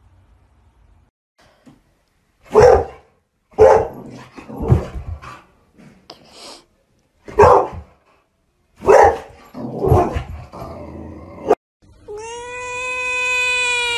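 A pet animal calling: about six short, loud calls, then a long, steady, high-pitched cry starting near the end.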